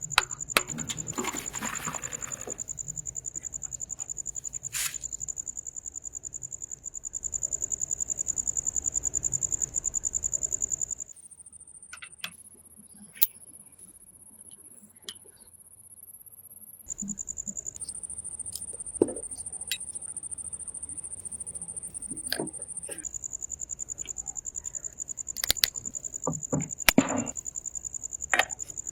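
Insects, cricket-like, chirping in a continuous high rapid trill that shifts pitch a few times. It is broken by scattered sharp clicks and knocks.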